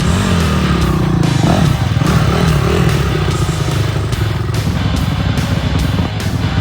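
Four-stroke single-cylinder dirt bike engine revving up and down under load on a trail, its pitch rising and falling every second or so, with background music underneath.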